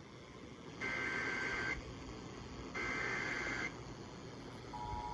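Weather alert radio tones: two high electronic beeps, each just under a second long and about two seconds apart, then a steady two-note alert tone starting near the end. The steady tone fits the Emergency Alert System attention signal that comes before a spoken warning.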